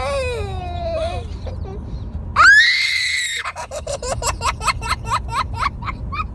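A young girl squeals, then lets out a loud, high shriek held for about a second, then breaks into rapid peals of laughter.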